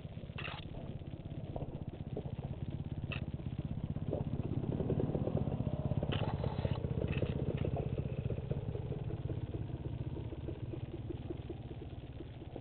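Dirt bike engine running on a rough trail, getting louder for a few seconds in the middle as it pulls harder. A few short clattering knocks come through, about half a second in, around three seconds in, and again around six seconds.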